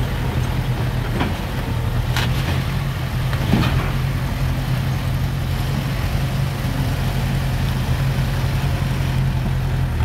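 Diesel engine of a heavy earthmoving machine running steadily at a low, even pitch, with a few sharp knocks in the first few seconds.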